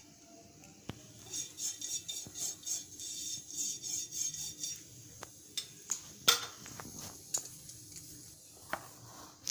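Silicone pastry brush swishing oil across a flat tawa pan in a series of strokes. In the second half come a few sharp clicks and knocks of utensils against the pan.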